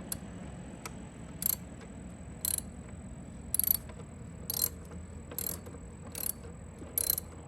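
A hand ratchet clicking in short strokes, about one a second, backing out the bolt that holds a motorcycle saddlebag latch.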